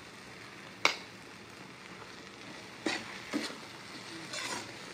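Gongura-and-tomato curry sizzling steadily in a brass kadai as red chilli powder is stirred in with a steel spatula. The spatula clanks sharply against the pan about a second in, knocks twice more near three seconds, and scrapes briefly after four seconds.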